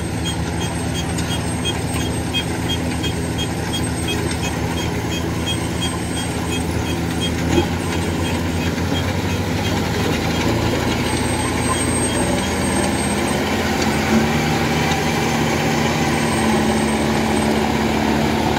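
Kubota DC-105X combine harvester's diesel engine and threshing machinery running under load while it cuts rice, a steady drone. It grows a little louder toward the end, and its pitch steps up about two-thirds of the way through.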